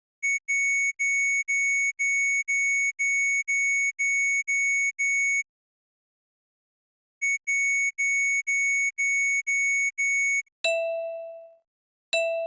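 Recreated Hitachi elevator signal sounds: a warning buzzer of short electronic beeps, about two a second, in two runs with a pause of about two seconds between them, then two chime dings about a second and a half apart near the end, each ringing down over about a second.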